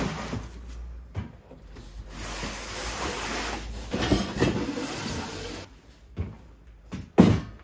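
Objects being moved and handled: long stretches of rough scraping with scattered knocks, then a few lighter knocks and one loud knock near the end.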